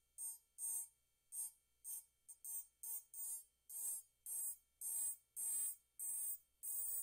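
Powered rotary engraving handpiece grinding script into a wine glass in short strokes, a whining, hissing grind about twice a second. The strokes get longer toward the end.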